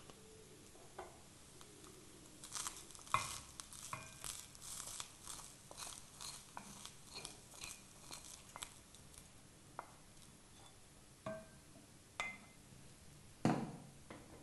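Roasted coconut, urad dal and dried red chilli mixture being tipped and scraped from a pan into a steel mixer-grinder jar: a quick run of light scraping and tapping clicks, then a few separate knocks of kitchenware, the loudest near the end.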